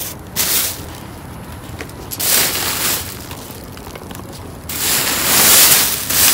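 Plastic bags crinkling and rustling as they are handled and pushed aside, in three bouts. The last and longest, from about five seconds in, is the loudest.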